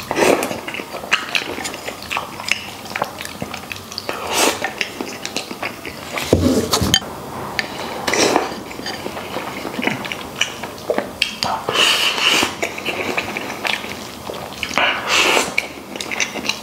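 A person eating braised beef trotter and rice: wet chewing, lip smacks and slurps, with wooden chopsticks clicking against the rice bowl.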